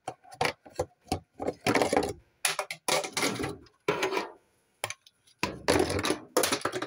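Plastic toys knocking and clattering against a cupboard shelf as a child rummages through them, in irregular knocks and scrapes. The loudest clusters come about two, three and six seconds in.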